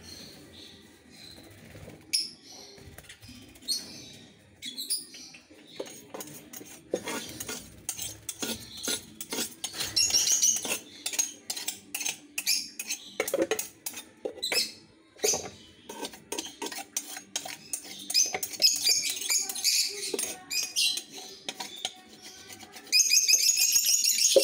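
A small metal blade scraping and scratching along a wooden bar from a lovebird cage, in quick irregular strokes, cleaning it. Lovebirds chirp in high bursts at times, loudest near the end.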